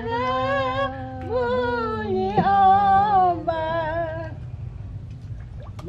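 A woman singing a slow song solo, holding long notes that bend in pitch. The singing stops about four seconds in, and it is quieter after that.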